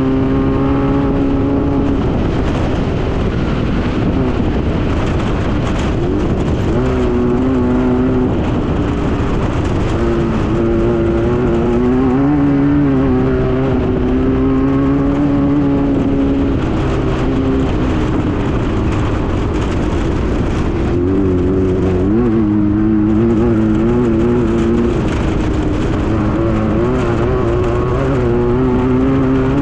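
Class 9 race buggy's air-cooled VW flat-four engine running hard under load, its pitch holding for a few seconds at a time, then dipping and climbing again with throttle and gear changes, over a steady rush of noise.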